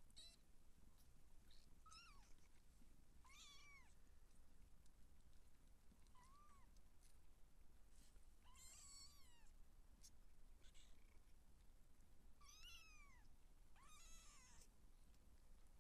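Two-week-old Siamese kittens mewing as they nurse: about eight short, high-pitched mews that each rise and fall in pitch, spaced a second or two apart.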